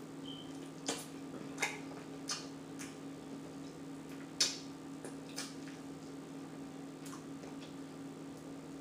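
Close-miked chewing and lip-smacking from someone eating: irregular wet clicks about a second apart, the loudest about halfway through, over a steady low hum.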